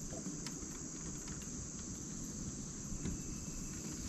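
Steady, high-pitched chorus of insects, one unbroken shrill tone over a low rumble.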